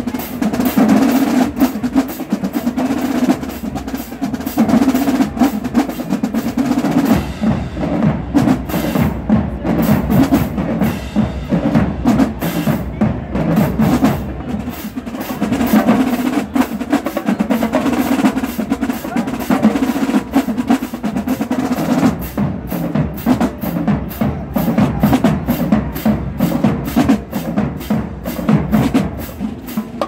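Marching band drumline playing a marching cadence: snare drums, tenor drums, bass drums and crash cymbals beating out a steady, driving rhythm with snare rolls.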